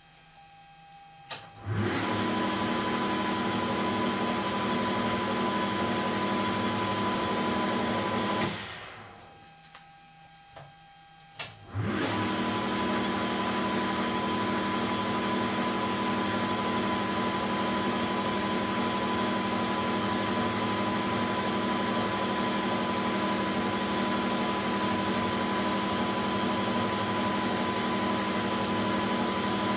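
Weiler Matador SV lathe running at 2400 rpm with a steady mechanical whine from its motor and headstock drive. It is switched on with a click about a second in, runs down and stops a little after 8 seconds, then is switched on again with a click about 11 seconds in and runs steadily.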